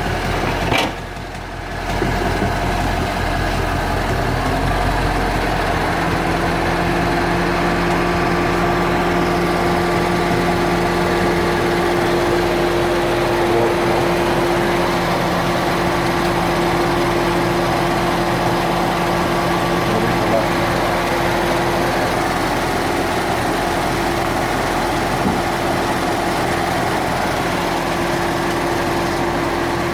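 2014 Ford Mustang GT's 5.0-litre V8 idling steadily, with the ticking noise that the dealership has not been able to explain. The level dips briefly about a second in, and a steady tone joins about six seconds in.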